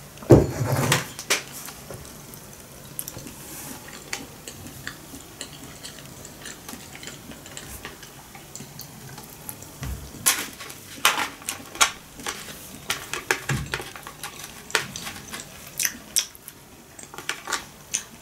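Wooden chopsticks clicking and tapping against a clear plastic takeaway container, small irregular clicks that grow busier in the second half. A louder knock near the start.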